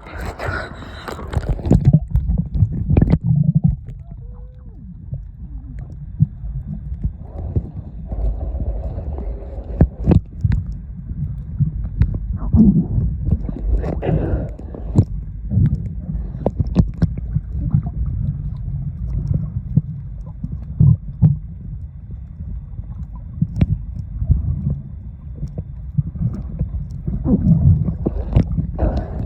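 Low, uneven rumble of wind and water on the microphone, with scattered sharp knocks.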